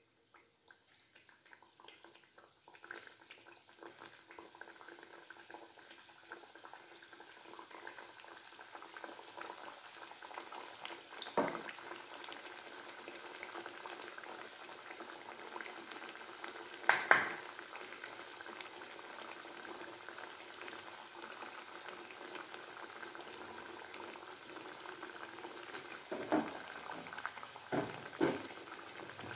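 Thekua, sweet wheat-flour dough cakes, deep-frying in oil in a steel kadai: the sizzling grows over the first ten seconds as more pieces are slid in one by one, then bubbles steadily. A few sharp knocks cut through it, the loudest about halfway.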